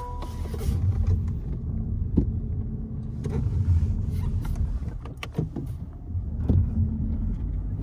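Car engine running under load as the car spins its wheels in deep snow with traction control switched off, a steady low rumble that swells and dips. A few short knocks sound over it.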